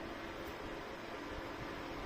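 Minthouz 2000 W PTC ceramic fan heater running, its fan giving a steady airflow hiss with a faint hum underneath.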